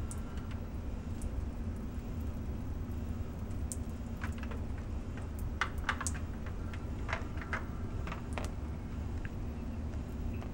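Water spattering from a thin falling stream. Irregular small drips and ticks land on the sink and balloon, most of them between about four and eight and a half seconds in, over a steady low hum.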